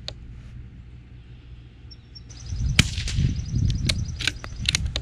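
A single suppressed shot from a CZ 457 Pro Varmint .22 LR bolt-action rifle about three seconds in, followed by a run of sharp metallic clicks as the bolt is worked to eject the case and chamber the next round.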